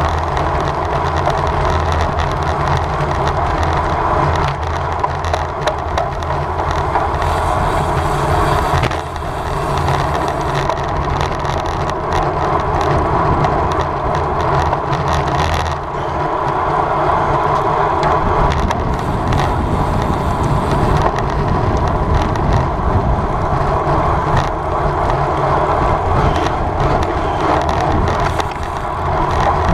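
Steady rushing ride noise from a road bicycle moving at race speed: tyres on pavement and wind.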